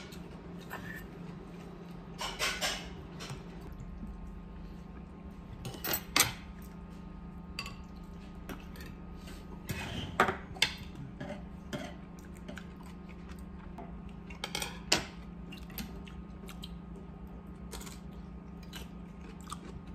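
A metal spoon and chopsticks clinking and scraping against a stoneware ttukbaegi pot and table dishes while eating, with a handful of sharp clinks spread through. A steady low hum runs underneath.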